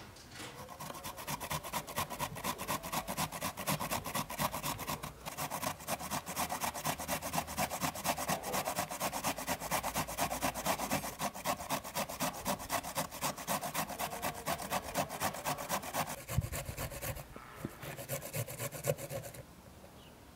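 Beetroot grated on a flat metal hand grater into a glass bowl: rapid, steady rasping strokes, with a short pause about three-quarters of the way through and stopping shortly before the end.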